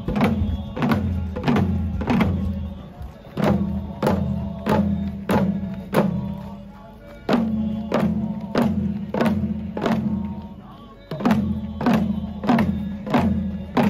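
Hand-held fan drums (uchiwa daiko) struck in a steady beat of about two strikes a second. Under them a group chants in a low, steady monotone, with short pauses for breath.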